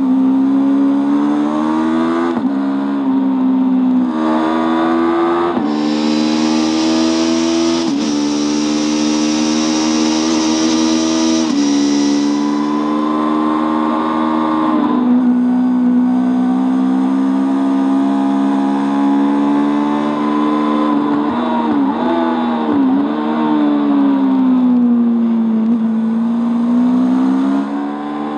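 Honda CB500 parallel-twin race bike engine, heard onboard, running hard at high revs. Its pitch climbs and steps down with each gear change, and drops and recovers once near the end as it slows for a corner and picks up again. A loud rush of wind fills several seconds in the middle.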